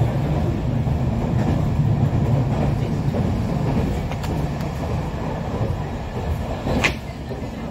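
JR Kyushu 817 series electric train running at speed, heard from inside the car: a steady low rumble of wheels on rail. A single brief sharp click comes near the end.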